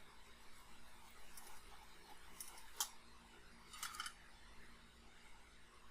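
A few faint, sharp clicks of small metal hand tools handled over a phone circuit board, with a quick cluster of them about four seconds in.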